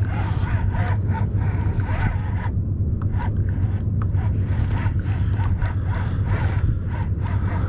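Wind rumbling steadily on the microphone over open water, with scattered light clicks and knocks from handling the fishing rod and kayak.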